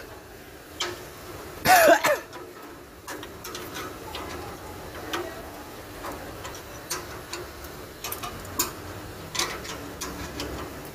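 A man coughs once, about two seconds in, followed by scattered light clicks and taps.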